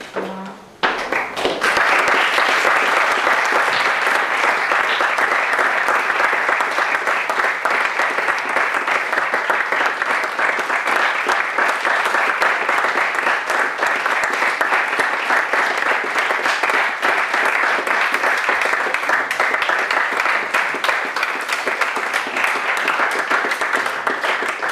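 Audience applauding, breaking out about a second in and keeping up a dense, steady clapping.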